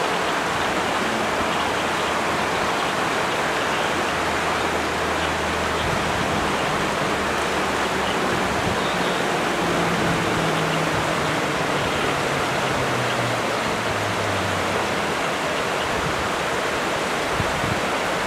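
Shallow river water rushing steadily over stones in white riffles, an even, unbroken rush.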